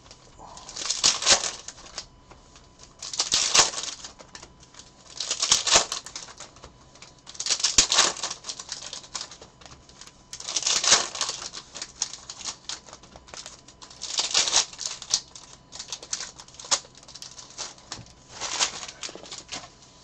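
Trading-card pack wrappers being torn open and crinkled, one pack after another, in about seven separate bursts of crackling. Quieter rustling of cards being handled comes between the bursts.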